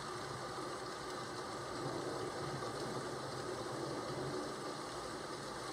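Steady rain, an even hiss with no thunder.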